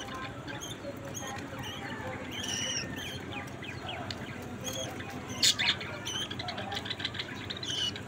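Budgerigars chattering softly in quick, high squeaks and clicks, with a louder chirp about five and a half seconds in, over a steady low hum.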